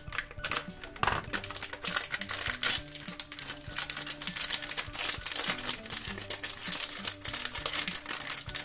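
A foil blind bag is cut with scissors, then crinkled and rustled in the hands as it is opened, with dense rapid crackling throughout. Soft background music plays underneath.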